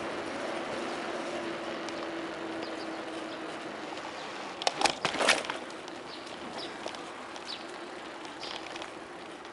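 Steady outdoor noise with a low hum that fades out over the first few seconds. About five seconds in comes a quick burst of sharp clattering clicks, followed by a few short high chirps.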